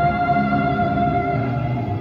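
Music with a long held note that ends shortly before the close.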